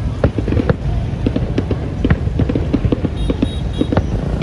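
Fireworks going off: many irregular sharp pops and cracks, several a second, over a steady low rumble.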